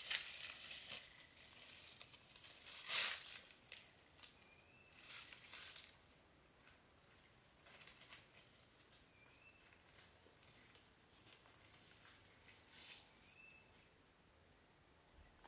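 Insects droning steadily at a high pitch, over footsteps and rustling leaves as someone climbs a slippery slope through undergrowth. The loudest step or scrape comes about three seconds in, and the steps grow sparse as the climber moves off.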